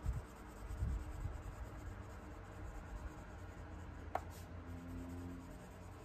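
Prismacolor colored pencil shading back and forth on sketchbook paper, a faint scratching of pencil lead on paper, with one small click about four seconds in.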